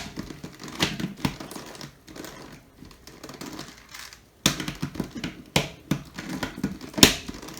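A 3x3 Rubik's Cube's plastic layers being turned by hand, a run of uneven clicks and clacks with a few sharper snaps, easing off for a couple of seconds in the middle before picking up again.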